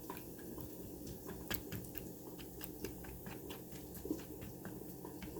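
Faint, irregular crackling and popping of food cooking on the stove, several sharp pops a second over a low steady hum.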